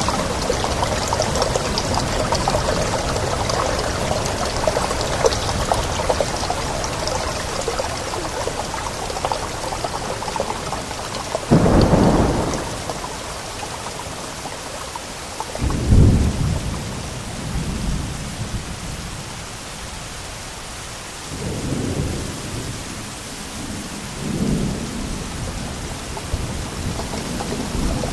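Steady rain with thunder rolling through it. A loud low rumble comes about 12 seconds in and another about 16 seconds in, followed by softer rumbles, while the rain grows lighter.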